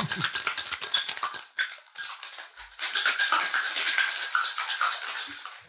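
Cocktail shaker being shaken hard with a Vesper and raw short-grain rice inside, the contents rattling in a fast, continuous clatter that eases briefly about two seconds in and stops just before the end.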